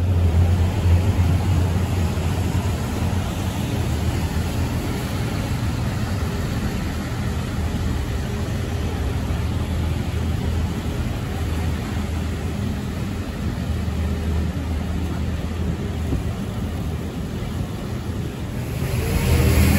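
Rainy city street ambience: a steady wash of wet traffic and rain, with a low rumble of wind buffeting the microphone. It grows louder near the end.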